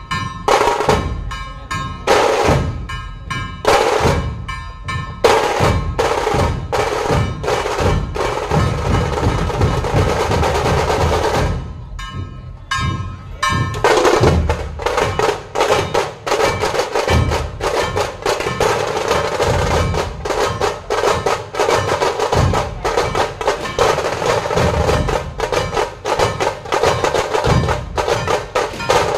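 Dhol tasha ensemble playing: barrel-shaped dhol drums struck over fast rolls on the tasha snare drums. It starts in separate strokes with short gaps, then settles into continuous dense drumming after a short break about halfway through.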